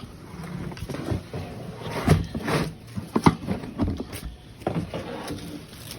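Irregular knocks and scrapes from handling a worm compost bin and its contents, over a low rumble of wind on the microphone.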